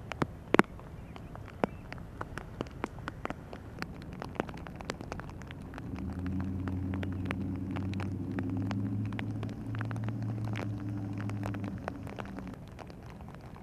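Heavy rain, with irregular sharp raindrop ticks striking close by. About halfway through, a low steady engine drone comes in and becomes the loudest sound, then fades out near the end.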